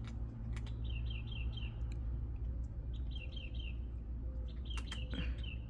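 Outdoor chirping: short runs of four or five quick, high chirps, repeating about every two seconds, over a steady low hum.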